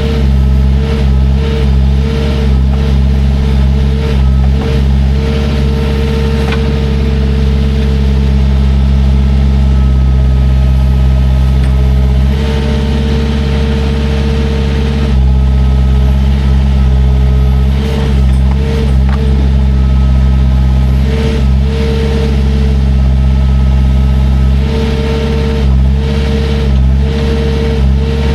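Heavy machine's engine running steadily under load while digging, with a higher tone that cuts in and out over and over.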